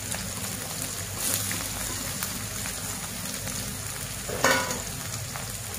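Chopped red onion, ginger and garlic sizzling steadily in a little hot oil in a wok as the sliced garlic is tipped in. A short, sharper sound stands out about four and a half seconds in.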